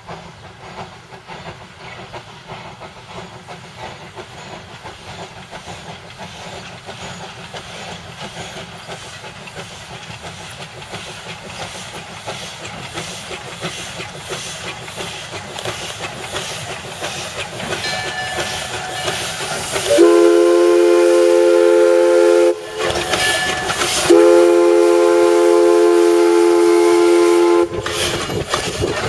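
Small steam locomotive approaching, its rhythmic exhaust beat growing steadily louder, then its chime steam whistle sounding several notes at once in two long blasts, the first about two-thirds of the way in, with a third blast just beginning at the end.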